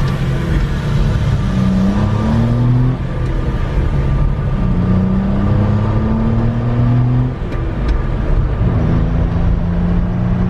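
1992 Suzuki Carry kei truck's small three-cylinder engine pulling through the gears, heard from inside the cab. The engine pitch climbs, drops off briefly about three and seven and a half seconds in, and climbs again each time.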